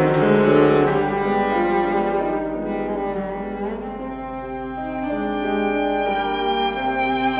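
Piano trio of violin, cello and grand piano playing classical chamber music, the cello's bowed melody in front. The playing softens a little midway and swells again near the end.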